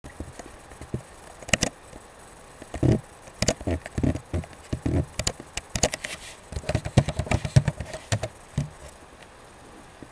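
Computer mouse clicks and keyboard key presses: an irregular run of short clicks and taps, thickest about two-thirds of the way through.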